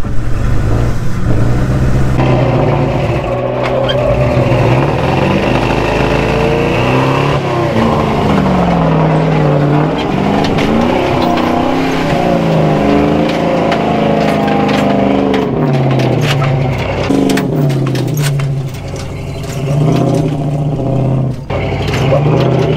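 Old carbureted tow truck's engine revving up and down under heavy load while towing a Jeep up a steep rock slope, the revs rising and falling as the driver works to keep it running. Sharp clicks and knocks come in the second half.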